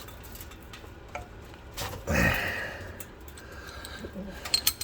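Socket ratchet clicking in scattered light ticks on the oil drain plug, with a brief louder rustle about two seconds in and a few sharper clicks near the end.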